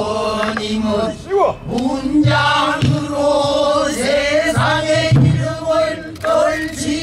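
A man singing pansori solo, drawing out long notes that bend and waver in pitch, with a few low thuds of a buk barrel drum beneath the voice.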